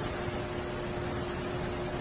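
Steady hiss with a faint, even hum and no distinct events.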